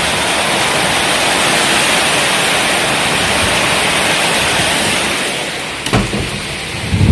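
Heavy downpour: a steady, dense hiss of rain pouring down, which falls away about five and a half seconds in. A sharp click follows, then a loud low thump near the end.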